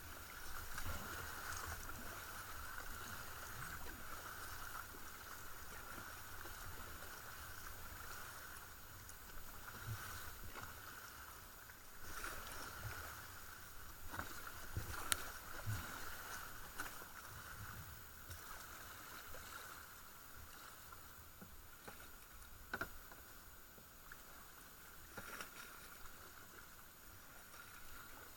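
Kayak being paddled on calm river water: faint, continuous splashing and dripping from the paddle blades dipping in stroke after stroke, with a few light knocks scattered through, the loudest about halfway.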